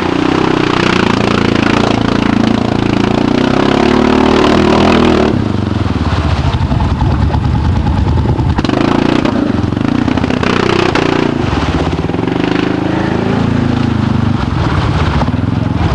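Arctic Cat ATV engine revving hard as it pulls through deep mud. The revs drop back suddenly about five seconds in, then rise and fall again.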